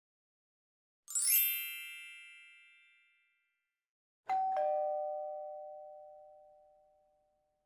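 Intro title sound effects: a bright, shimmering chime flourish about a second in that fades over two seconds, then a two-note falling ding-dong chime that rings out slowly.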